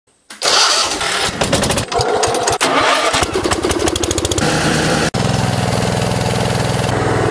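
Small garden tractor engines cranked by the starter. One catches and picks up into an even firing rhythm, and after a cut another runs steadily at idle.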